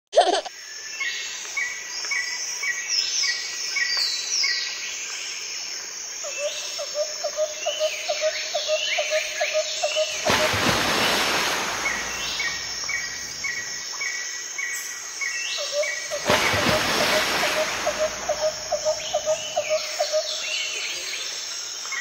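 Several birds calling over a steady insect drone: repeated short chirps, falling whistles, and a fast trill that starts about six seconds in and again later. Two rushes of noise break in partway through.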